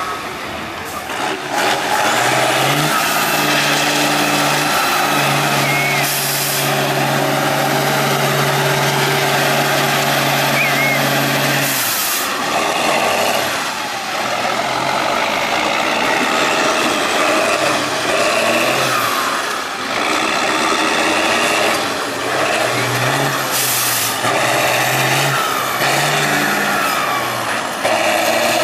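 Air-cooled diesel engines of 8x8 Tatra trial trucks running and revving hard under load over rock, the engine note repeatedly rising and dropping. A few short hisses of air cut through.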